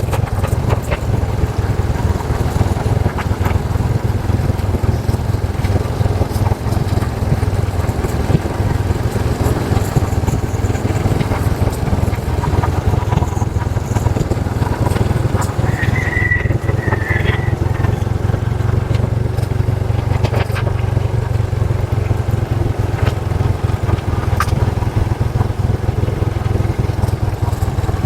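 Motorcycle running steadily while riding, a constant low rumble throughout. Two brief high chirps sound about halfway through.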